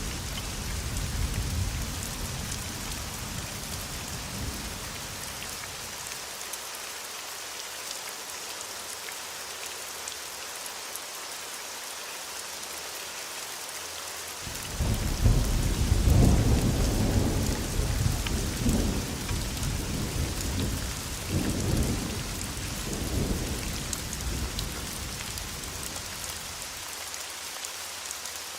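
Thunderstorm: steady heavy rain hissing throughout, with a rumble of thunder dying away in the first few seconds. About halfway through, a loud thunderclap breaks in suddenly and rolls on in several swells for about ten seconds before fading.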